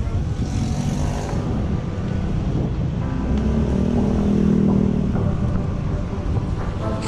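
Wind buffeting the microphone and road rumble while riding a bike through city traffic. A motor's hum swells and fades about halfway through.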